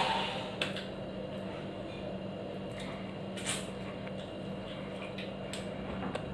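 Eating by hand from a steel plate: wet chewing and the squish of rice being mixed, with the loudest burst right at the start and a few short clicks, over a steady low hum.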